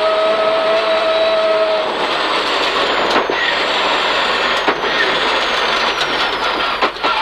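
Peugeot 306 rally car's engine heard from inside the cabin, holding a steady high note for about two seconds, then breaking into rougher engine and road noise with several sharp knocks.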